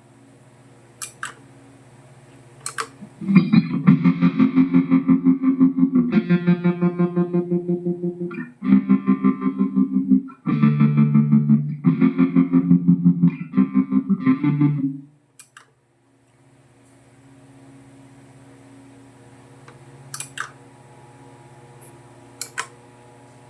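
Distorted electric guitar played through a Mooer GE150 Pro LI multi-effects processor: fast, evenly repeated chugging strokes begin about three seconds in, with two short breaks, and stop abruptly about fifteen seconds in. Before and after, only a low hum and a few clicks from the rig.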